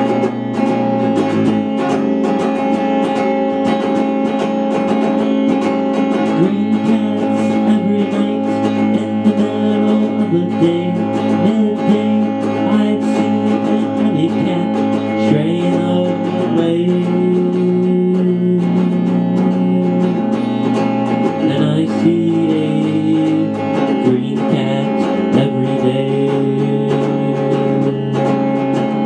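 Electric guitar played through a small amplifier: continuous strummed and picked playing with sliding notes, over steady held notes that ring throughout.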